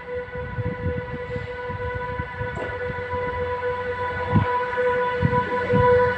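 Freightliner E6ACTd Dragon electric locomotive approaching with a freight train: a steady high whine over a low rumble of wheels on rail, both growing louder as it nears.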